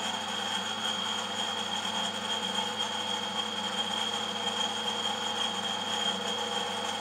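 A workshop machine running steadily: an even mechanical hum with a constant high whine above it.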